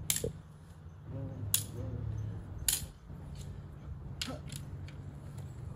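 Prop weapons striking each other in a staged sword fight: a series of sharp clacks, about five strong hits spaced unevenly, with a few lighter taps between.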